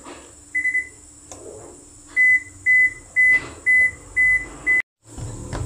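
Washing machine control panel beeping: one short beep, then a run of six beeps at the same pitch about half a second apart. The sound cuts out briefly near the end.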